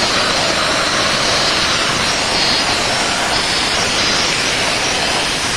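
VacuFlo 560 central vacuum running, its hose nozzle drawing air with a steady, loud rushing noise.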